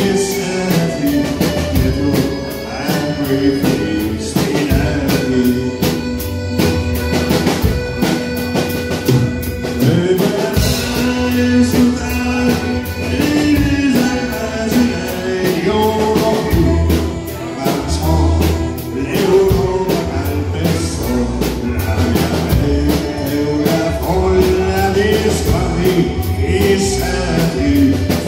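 Live band playing a lively song: a man singing into a microphone over electric guitar, bass and accordion, with a steady beat.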